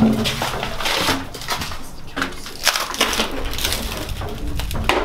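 Footsteps crunching over a debris-strewn floor, with an irregular run of crackles and scrapes as people walk.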